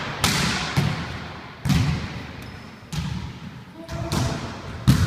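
Volleyballs being hit and landing on a wooden gym floor: about six sharp smacks at irregular intervals, each echoing in the hall.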